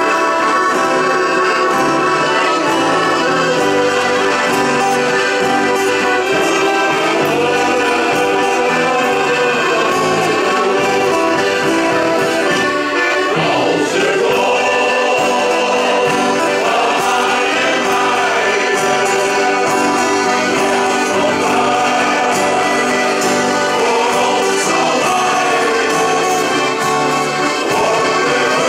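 Shanty choir singing together to piano accordion accompaniment.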